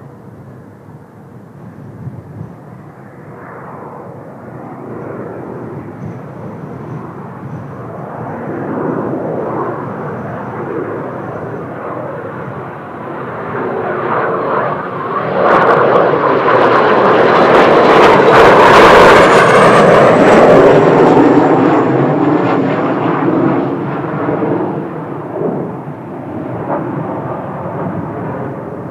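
Kawasaki T-4 jet trainers flying past: the turbofan rumble builds for several seconds, peaks about two-thirds of the way through with a faint falling whistle, then fades away.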